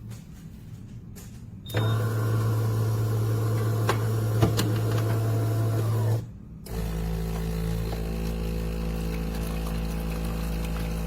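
Automatic espresso machine's motor running: a steady mechanical hum starts about two seconds in and runs for about four seconds, stops briefly, then a second steady hum at a different pitch starts and keeps going.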